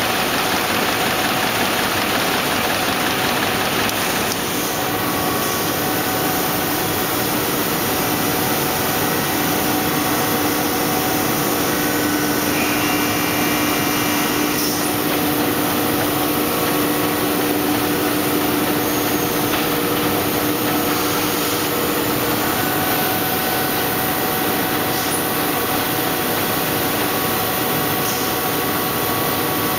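Envelope folding and gluing machine running steadily, a constant dense mechanical noise with a few faint steady hums. The high hiss eases a little about four seconds in.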